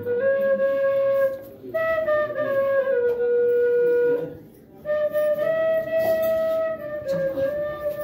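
Bansuri (bamboo flute) playing a slow bhajan melody in long held notes, stepping between pitches, in three phrases with two short pauses between them.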